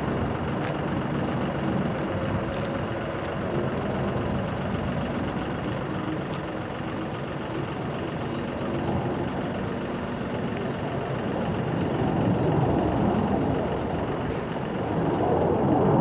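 F-15 Eagle fighter jet's twin engines rumbling steadily in flight, growing louder in the last few seconds.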